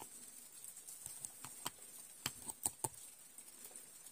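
Granular smokeless gunpowder pouring from a small metal powder measure into a glass jar, a faint rustle with several light clicks and taps in the middle.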